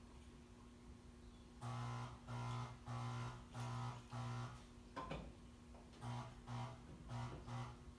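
Air horn sounded on compressed air through a whistle valve in repeated short blasts: about five half-second toots, a sharp click, then a quicker run of about six shorter toots.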